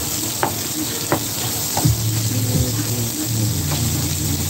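Crumbled ground meat sizzling on an electric griddle while a spatula chops and scrapes through it, the blade striking the griddle plate with several sharp clicks.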